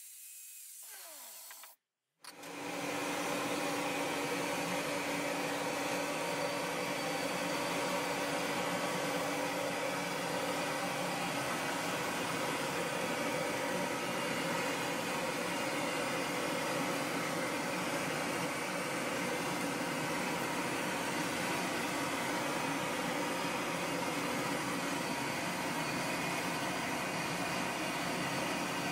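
An angle grinder spins down with a falling whine over the first two seconds. After a brief gap, an electric blower runs steadily, forcing air into a solid-fuel forge fire: a constant rushing noise with a steady hum.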